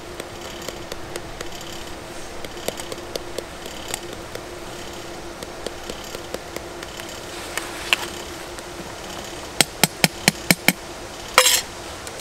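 A metal spoon stirring in a steel camping mug, with light scattered clinks, then five quick sharp taps on the mug about ten seconds in, followed by a louder ringing metal clank.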